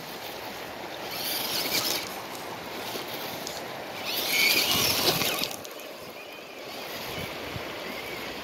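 Steady rushing noise of water and wind on a stony shoreline, swelling twice into a louder hiss.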